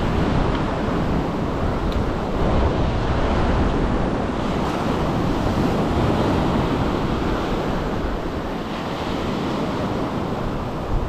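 Ocean surf breaking and washing up the sand around the feet, with wind buffeting the microphone. The sound is a steady wash without a break.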